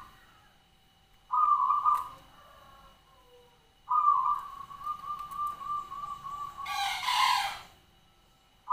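Zebra dove (perkutut) calling: a short coo about a second and a half in, then a long call of rapid rolling notes lasting about three seconds, cut across near the end by a louder, harsher burst; another coo starts just as it ends.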